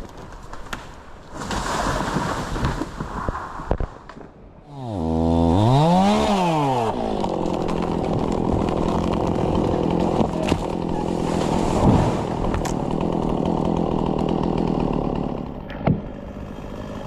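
Two-stroke chainsaw revving up sharply about five seconds in, then running steadily at high speed for about ten seconds, easing off slightly near the end.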